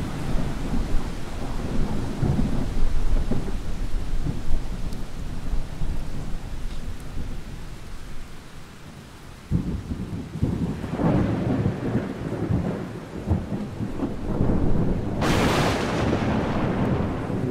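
Thunder over steady rain. A rumble dies away to a lull about eight seconds in. A new roll starts suddenly about nine and a half seconds in and builds to a sharp, loud crack of a nearby strike near the end, which then rumbles on.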